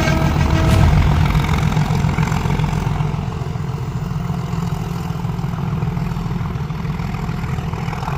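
Locomotive engine of the Ooty toy train running steadily at idle, a low rumble that eases slightly about three seconds in.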